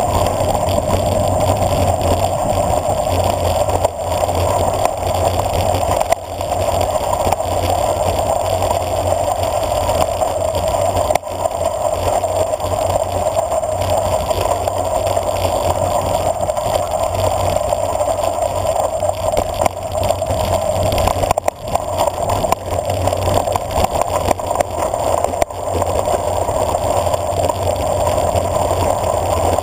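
Wind rushing over a bicycle-mounted camera, mixed with the tyres rolling on a loose gravel road, during a downhill ride on a drop-bar bike. A steady loud rush with a few short dips.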